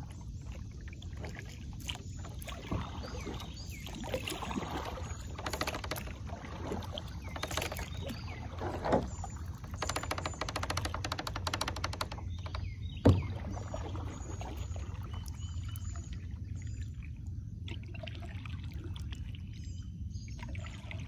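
Kayak paddle strokes splashing and dripping water, over a steady low rumble. A brief run of rapid clicks comes about ten seconds in, and a single sharp knock about thirteen seconds in is the loudest sound.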